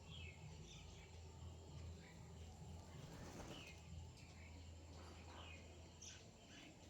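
Faint, scattered chirps of small birds, over a steady low hum, with a brief rush of noise about three seconds in.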